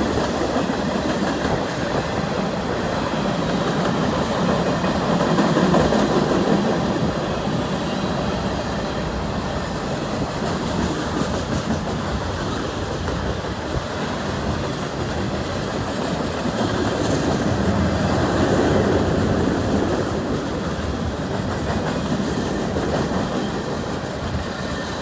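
CN train 397 rolling past, a steady run of wheel-on-rail noise from its railcars that swells louder about five seconds in and again around eighteen seconds.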